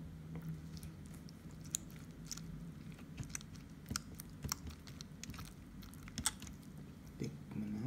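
Silicone spatula cutting into a soft baked cassava cake in an aluminium foil pan, with scattered sharp clicks and crinkles from the spatula and the foil pan.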